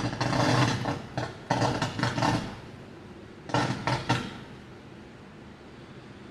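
Close thunder cracking in three bursts of sharp crackles, the first at the start, the second about a second and a half in, the third about three and a half seconds in, over steady background noise.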